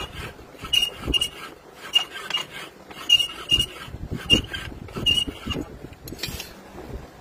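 Metal tools and parts striking one another: irregular light metallic clinks and taps, about two a second, each with a short high ring. The strikes stop shortly before the end.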